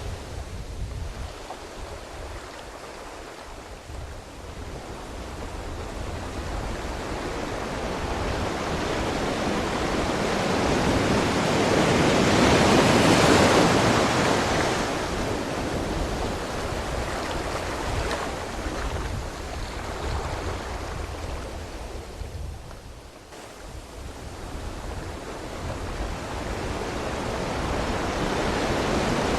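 Ocean surf: a wave breaks and washes in, swelling to its loudest about halfway through, then easing off. The surf dips briefly and builds again with the next wave near the end.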